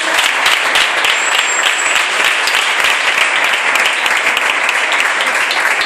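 Congregation applauding: many people clapping together, loud and steady.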